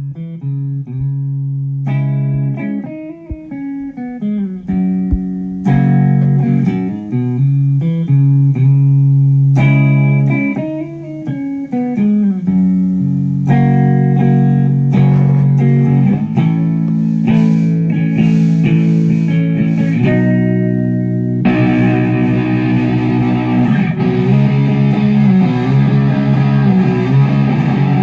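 Electric guitar, a Telecaster with active pickups, played through an amplifier: single picked notes and ringing chords with pauses between phrases. About 21 seconds in, the tone turns much thicker and distorted, with sustained chords played continuously.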